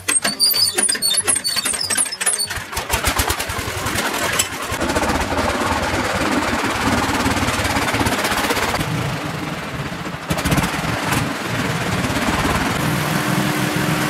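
Engine of a farm three-wheeler starting up: rapid, even firing beats for the first couple of seconds, then running steadily while the vehicle is driven.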